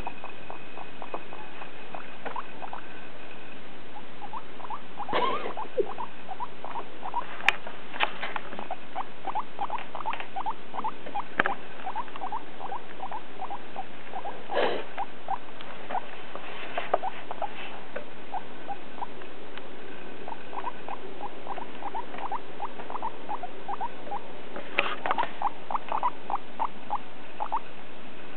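Guinea pig squeaking in long runs of short, quick notes, several a second, with a few louder calls among them.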